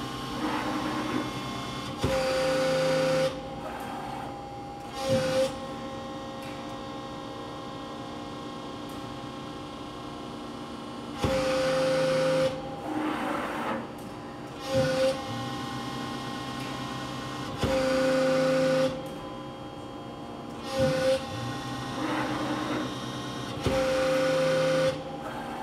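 Cincinnati CB II CNC press brake running a program: a steady hydraulic hum, broken by a repeating machine cycle about every six seconds, each with a brief whine and then a louder burst about a second long as the back gauge moves in and out and up and down and the ram strokes.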